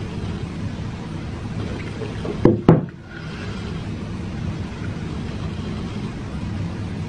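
A person gulping down a drink from a large mug over a steady low noisy rumble, with two short loud sounds close together about two and a half seconds in.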